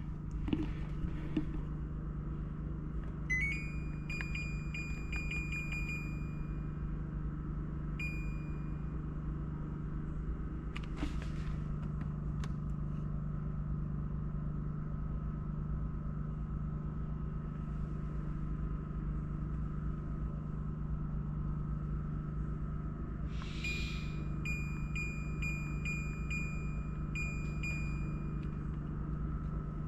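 LG window air conditioner beeping in answer to its remote: a run of high beeps from about three to seven seconds in, a single short beep, then a string of short beeps near the end. Under them runs a steady low hum, with a couple of faint clicks around eleven seconds in.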